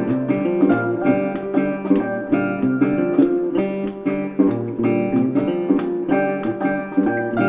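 Instrumental background music: plucked guitar notes over a steady rhythm.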